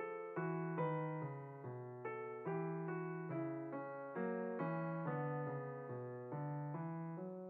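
Background piano music: a steady run of notes, about two to three a second, each ringing and fading.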